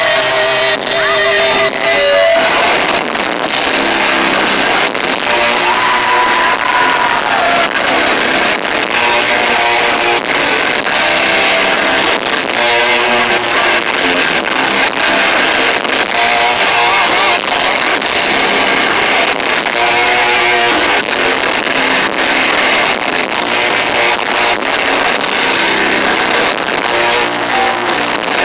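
Live heavy metal band playing loudly: distorted electric guitars over steady drum hits, recorded with poor, harsh sound.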